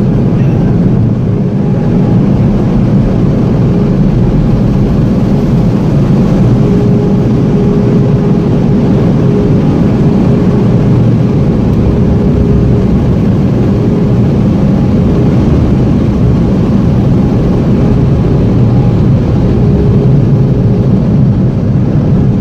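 Automatic car wash machinery running, heard from inside the car: a loud, steady roar with a faint steady hum through it.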